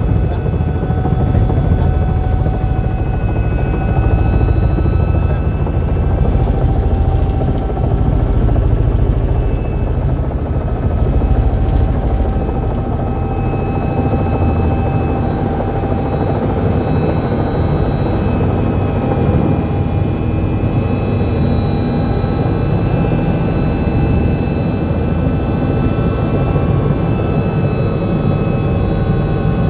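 Small helicopter's engine and rotor running steadily, heard from inside the cabin: a loud drone with a fast low rotor beat and a few steady whining tones, as the helicopter descends to land.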